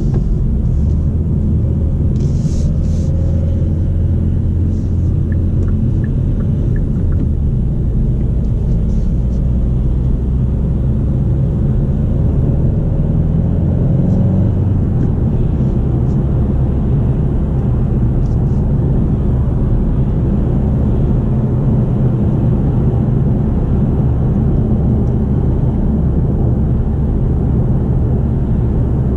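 Cabin sound of a 2020 Kia XCeed 1.6 CRDi on the move: a steady low rumble from its four-cylinder turbodiesel engine with road noise. The engine note rises and then steps down about halfway through.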